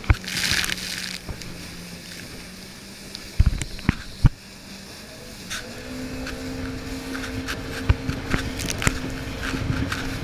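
Jet ski engine running steadily under way, its pitch stepping up about halfway through as the throttle is opened. The hull thumps sharply a few times on the waves, with a burst of spray hiss near the start.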